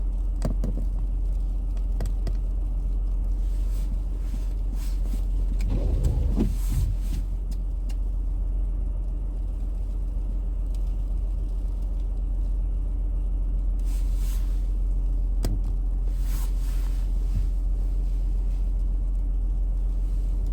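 A vehicle engine idling with a steady low rumble. A louder rustle about six seconds in, and a couple of brief hissing bursts later on.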